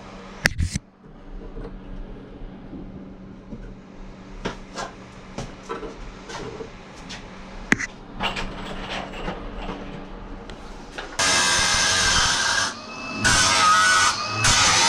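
Sharp knocks and scattered taps of hand work on the old shower plumbing, then a handheld power tool starts about eleven seconds in and runs loudly in two bursts with a short pause between.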